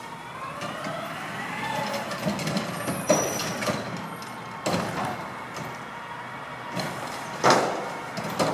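Garbage truck at work: its engine revs up, rising in pitch over the first two seconds or so, then several loud metal bangs, the loudest about three quarters of the way through.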